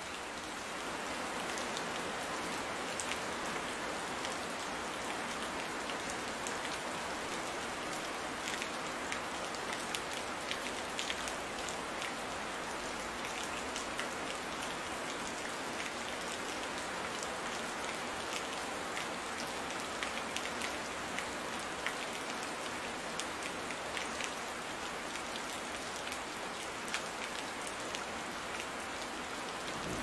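Steady rain falling, with many scattered small drop ticks over an even hiss.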